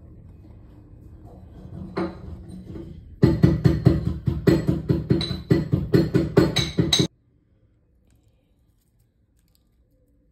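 Background music with a fast, steady beat, louder from about three seconds in, cutting off suddenly about seven seconds in and leaving near silence.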